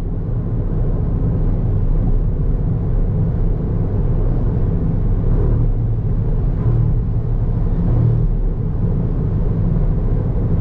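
Steady low rumble, like a vehicle's engine and road noise, cutting off abruptly at the end.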